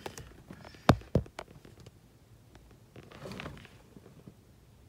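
Two quick sharp clicks about a second in, then a brief soft rustle around three seconds in, like handling noise in a car cabin.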